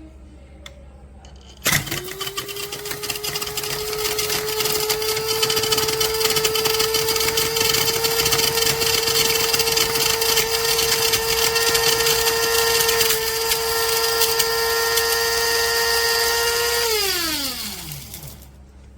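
KRUPS Fast Touch electric blade coffee grinder switching on and running for about fifteen seconds with a steady whine, then winding down with a falling pitch once it is released.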